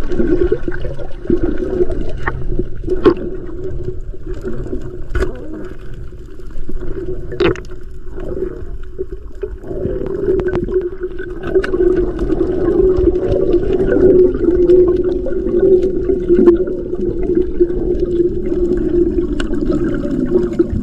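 Underwater sound picked up by a camera held below the surface: muffled water noise with a steady low hum, stronger in the second half, and a few sharp clicks in the first half.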